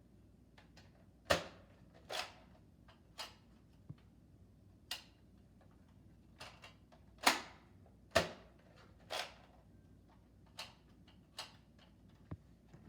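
A series of about a dozen sharp plastic clacks and snaps, roughly one a second at uneven spacing, a few louder than the rest: Nerf blasters being worked and fired.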